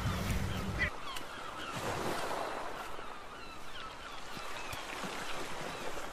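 Water sloshing and lapping around a plastic sit-on-top kayak as it is paddled. Wind rumbles on the microphone for about the first second.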